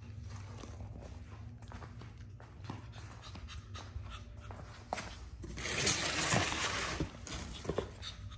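Imperial Shih Tzu puppy panting, with scattered light clicks. A louder stretch of rustling noise lasts about a second and a half past the middle.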